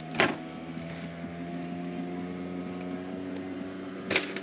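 A motor running steadily at an unchanging pitch, with a sharp knock just after the start and another near the end.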